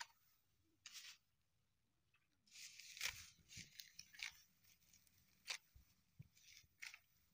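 Dry cut rice straw rustling and crackling as it is gathered up by hand, in irregular bursts with quiet gaps between. The longest bunch of crackles comes in the middle.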